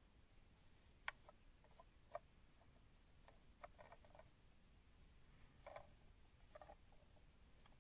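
Near silence: faint room tone with a scattering of light clicks and taps, the clearest about a second in.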